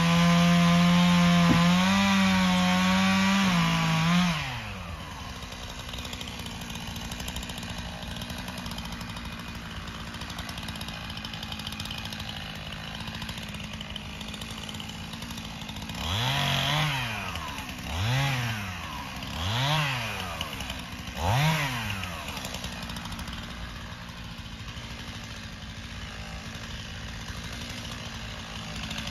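Chainsaw running at full throttle as it bucks a felled pine log, then dropping to idle about four seconds in. It idles for a long stretch, is revved four times in quick succession, each rev rising and falling in pitch, and settles back to idle.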